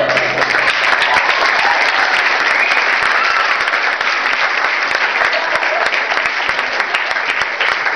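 Audience applauding steadily: dense, continuous hand-clapping at the end of a song.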